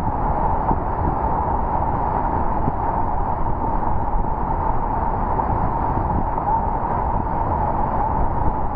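Creek in flood, brown floodwater rushing and churning past a concrete wall in a steady, loud rush of water.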